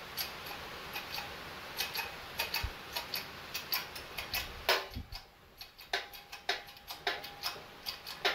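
Hydraulic shop press pushing a motor's rotor shaft out of its heated pulley: irregular sharp metallic clicks and ticks, with one heavier knock about five seconds in.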